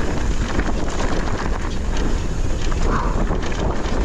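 Electric mountain bike rolling fast down a dirt trail: steady wind buffeting the action camera's microphone over tyre rumble, with many short rattles and clicks from the bike over bumps.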